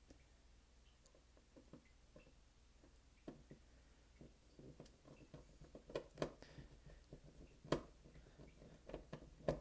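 Small Phillips screwdriver turning a tiny screw into a calculator's metal shield plate: faint scraping and scattered light clicks of the tip in the screw head, with a few sharper ticks in the second half.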